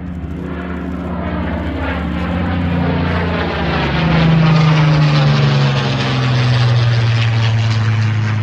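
The two Rolls-Royce Merlin V12 engines of a de Havilland Mosquito running loud as the aircraft passes. The engine note grows loudest about halfway through, then its pitch slides slowly downward.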